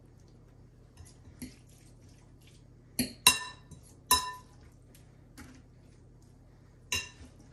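A utensil clinking against a casserole dish about four times, each strike ringing briefly, with a few softer taps between, as the rolled enchiladas are laid in.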